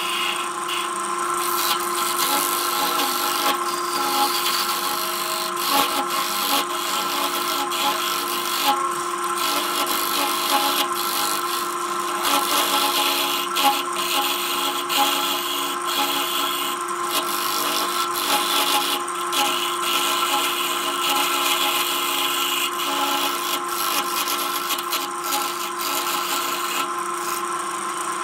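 Electric wood lathe motor running steadily while a turning tool cuts the inside of a spinning wooden bowl: a continuous scraping rasp with frequent irregular ticks and knocks. The cutting lets up near the end as the tool is lifted off, leaving the motor running.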